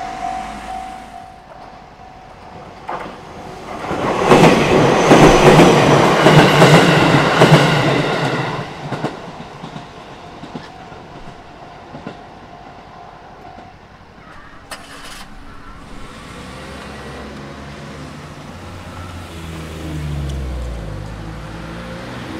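A JR Minobu Line electric train passes over a level crossing, its wheels clattering on the rails, loudest about four to nine seconds in. The crossing's warning bell rings steadily over it and stops about fourteen seconds in. Near the end a low engine hum swells.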